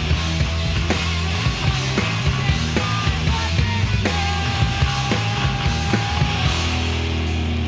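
Post-hardcore rock music with drums, bass and guitar and no singing heard. Near the end the drum hits stop and a held low chord rings on.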